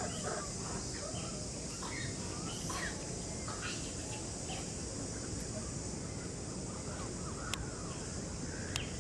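Short, high chirping animal calls scattered over a steady outdoor hiss, with two sharp clicks near the end.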